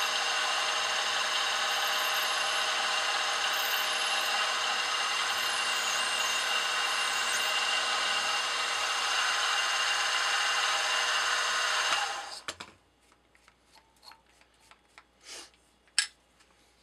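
Benchtop mill's spindle motor running steadily with a whine while a 3/32-inch drill bores into a brass cylinder head. The motor stops abruptly about twelve seconds in, leaving a few faint clicks.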